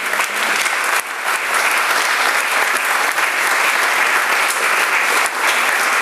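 An audience applauding, many people clapping together in a dense, even patter.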